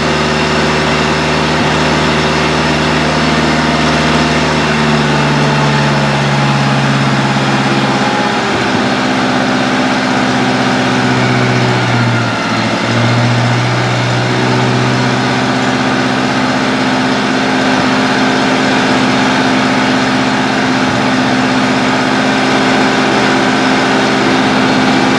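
1970s Bobcat 610 skid steer's gas engine running after a hard cold start. Its speed shifts about a quarter of the way in, dips briefly near the middle, then holds steady.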